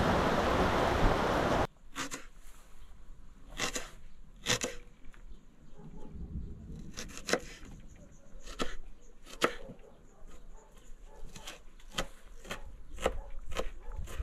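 A loud steady rushing noise that cuts off suddenly about two seconds in. Then a kitchen knife chopping an onion on a wooden cutting board: irregular knocks of the blade striking the board.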